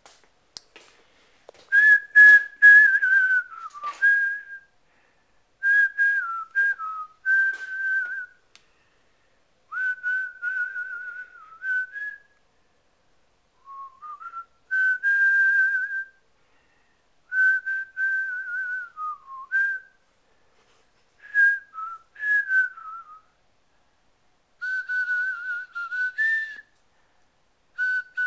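A person whistling a wandering tune in short phrases, with brief pauses between them.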